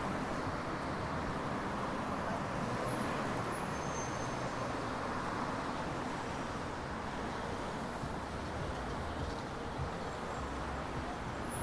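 Steady city street traffic: motor vehicles passing on a busy road in a continuous, even wash of sound.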